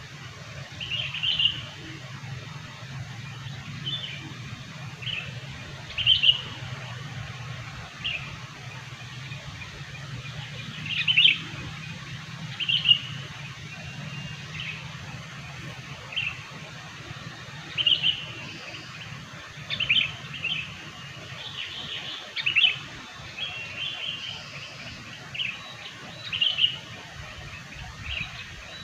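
Sooty-headed bulbul (kutilang) calls: short, bright chirping notes repeated every second or two, sometimes in quick pairs, over a steady low hum.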